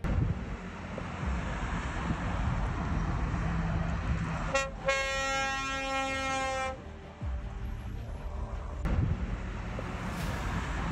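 A steady low rumble, with a single horn blast held at one pitch for about two seconds near the middle.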